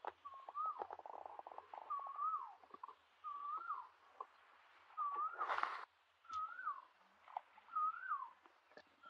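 A bird calling over and over, a short rising-then-falling note repeated about six times at a steady pace. Scattered light clicks and a brief rustle come about five and a half seconds in.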